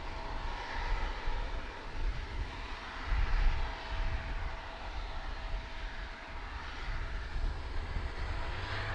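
Aircraft engine running, a steady noisy drone with a thin steady whine that fades out near the end. Under it is an uneven low rumble that swells about three seconds in.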